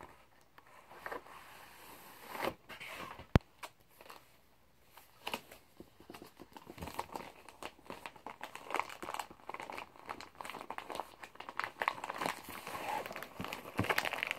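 Crinkling and rustling of a mailer envelope being handled and opened, in many short rustles that grow denser and busier over the second half. A single sharp click about three seconds in is the loudest sound.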